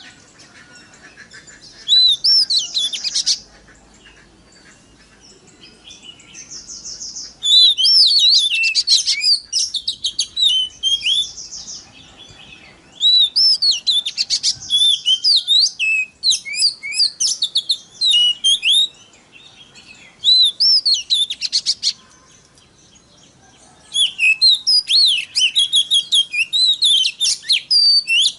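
Oriental magpie-robin singing in loud bursts of rapid, varied whistles and chatter, with short buzzy rattles mixed in, broken by pauses of one to two seconds.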